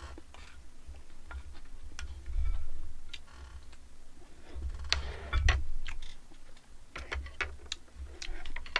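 Close-miked eating: a wooden spoon scraping and knocking a stainless steel bowl and a mouthful of mixed rice being chewed, heard as scattered small clicks with a few dull thumps.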